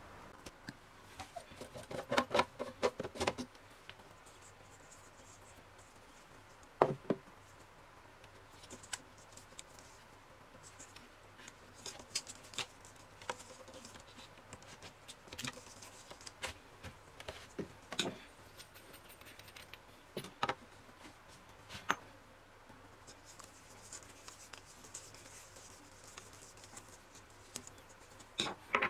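Metal pipe fittings being handled and fitted to a submersible pump's outlet: scattered small clicks, taps and scrapes, a quick run of clicking early on and a few single sharp knocks. A soft rustling hiss comes in during the last few seconds.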